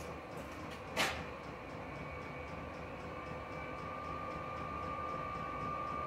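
Chinese diesel air heater running steadily, its combustion and blower roaring with a steady whine, and faint regular ticking from its fuel dosing pump. A single sharp knock about a second in.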